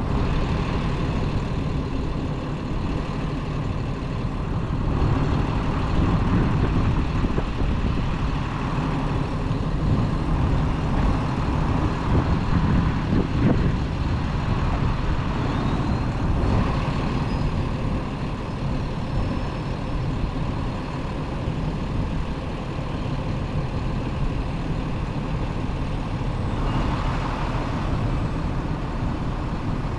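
Heavy diesel truck engines running, a continuous low rumble that grows somewhat louder for several seconds through the middle and then eases.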